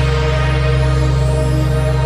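Background music: sustained steady synthesizer-like tones over a deep, held bass.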